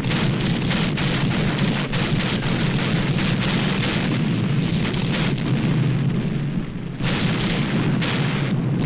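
Battle sound of artillery fire and shell bursts: a loud, continuous rumble with dense crackling throughout, dipping briefly about seven seconds in before swelling again.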